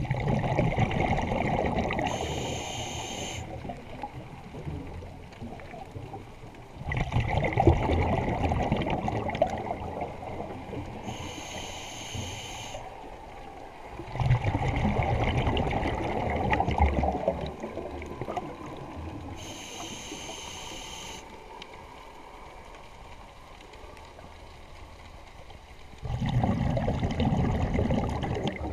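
Scuba diver's breathing heard underwater. Exhaled bubbles rumble and gurgle in bursts of two to three seconds, every several seconds. Between them, a shorter high hiss from the regulator comes on each inhale.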